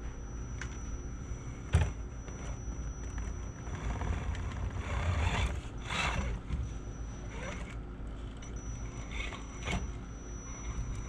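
Axial SCX10 RC crawler's electric motor and geared drivetrain running at crawling speed with a high steady whine as the truck climbs over rock. Its tyres scrabble and grind on the rock in the middle, and there is a sharp knock about two seconds in.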